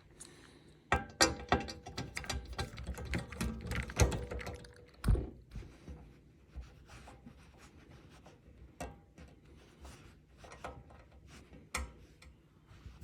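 Clicks, knocks and rattles from handling the dust filters of a Rosewill Cullinan PX mid-tower PC case, including a magnetic filter: a dense run of clatter for the first few seconds, then scattered single clicks.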